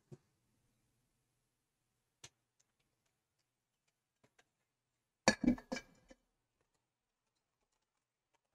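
Sparse faint clicks and taps of a fineliner pen on a sketchbook page, then a short burst of louder knocks and handling noise about five seconds in.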